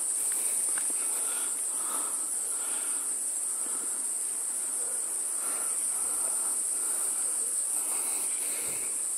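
Forest insects droning with a steady, unbroken high-pitched hum.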